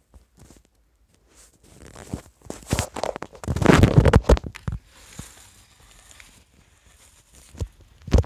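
Handling noise from a phone moved low along the carpet: scattered knocks, then a loud rustling scrape lasting about a second and a half midway, and a sharp knock near the end.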